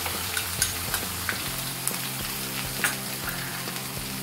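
Ground masala paste frying in hot oil: a steady sizzle with scattered crackles and pops.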